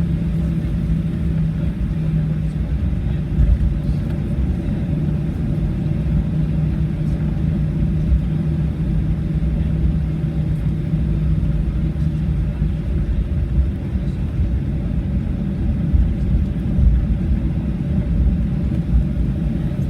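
Cabin noise of a Boeing 737-800 taxiing after landing: its CFM56-7B engines at idle under a steady low rumble. A steady hum that runs underneath weakens about twelve seconds in.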